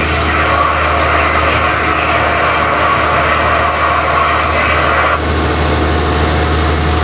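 An engine running steadily with a constant low hum, under a hiss that cuts off suddenly about five seconds in.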